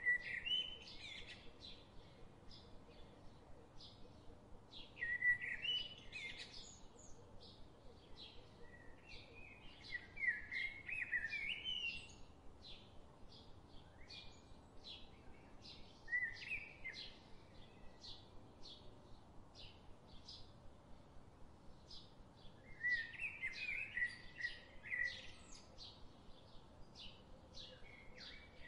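Birds chirping and singing in short warbling phrases, five or six times. Behind them runs a steady series of short, high ticks, about two a second.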